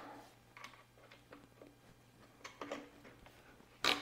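Quiet handling of a bike rack's rubber retention strap and cradle: light taps and rustles as the strap is worked through, with a sharp click near the end. A faint steady low hum runs underneath.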